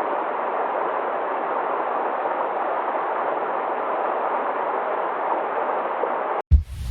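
River water flowing steadily: an even, constant rush. Near the end it cuts off abruptly, and a deep low boom begins, the loudest sound here.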